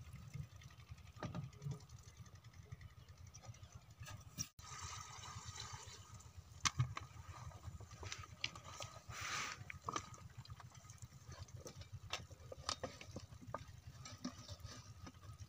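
Water splashing as a diesel pump set is primed by pouring from a plastic jerrycan, with a few sharp knocks and rustles as the lay-flat delivery hose is handled, over a steady low drone.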